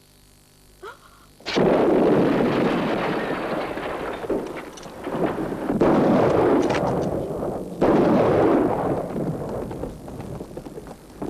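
Three heavy explosions of artillery shells bursting, one about a second and a half in, then about four and two seconds later. Each is a sudden blast that rumbles away over a second or two, with a few sharp cracks of gunfire between them.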